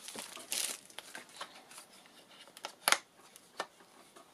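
Hands handling a small card sleeve and the paper packet of vellum sheets inside it. A brief paper rustle about half a second in, light scattered ticks, then two sharp taps of card near the end, under a second apart.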